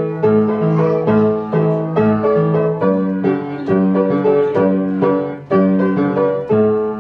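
Piano or keyboard music: chords struck on a steady beat, about two a second.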